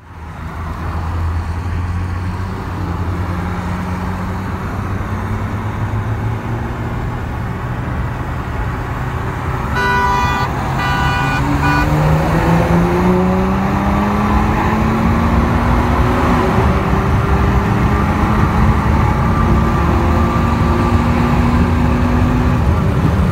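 Tuned Audi 3.0 TDI V6 diesel heard from inside the cabin, first running steadily. A car horn toots three times, then the engine is put under full load: its pitch climbs steadily, drops at one upshift about two-thirds of the way through, and climbs again.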